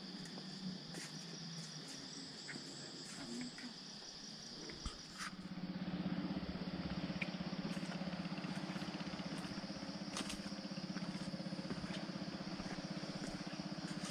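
Insects trilling steadily in high, continuous tones. About five seconds in, a louder low, fast-pulsing drone joins them and holds steady.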